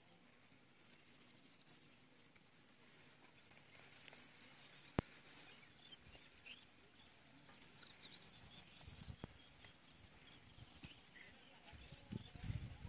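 Near silence outdoors with faint, scattered bird chirps, a single sharp click about five seconds in, and a few low bumps near the end.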